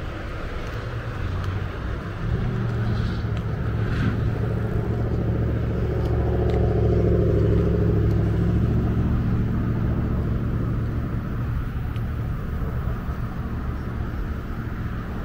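Road traffic: a motor vehicle passing close by, its rumble building from about two seconds in, loudest around the middle, then fading.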